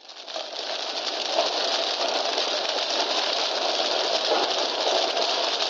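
Old-film crackle effect: a steady hiss scattered with irregular pops and clicks, fading in over the first second.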